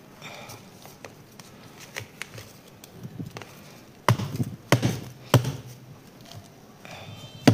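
Plastic freezer container crusted with thin frost flakes being handled: faint ticks and rustles, then three sharp knocks in quick succession past the middle and one more sharp click at the end.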